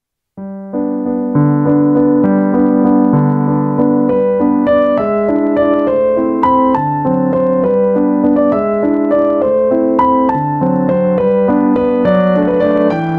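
Background piano music, a gentle melody over repeating lower notes, starting just after a brief silence.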